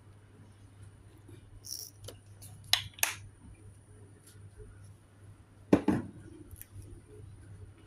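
Small objects being handled: a brief hiss, two sharp clicks about three seconds in, and a louder knock near the end, over a steady low hum.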